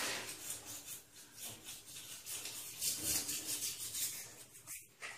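Toothbrush bristles scrubbing back and forth over a dog's teeth, a scratchy rubbing in quick repeated strokes, several a second.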